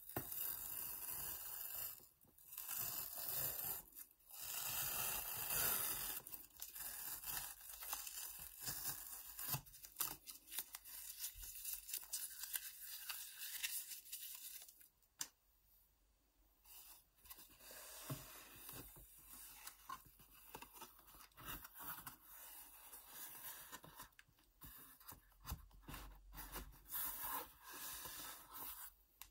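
Paper tear strip being ripped along the edge of a corrugated cardboard shipping box, in three long tearing pulls over the first six seconds or so. After that, scattered rustling and crinkling of the torn paper strip and scraping of the cardboard as the box is folded open.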